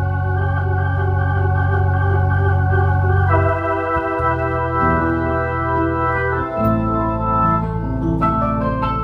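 Electronic keyboard playing slow, sustained organ-like chords over a held bass note. The chords change about every three seconds, then move more quickly near the end.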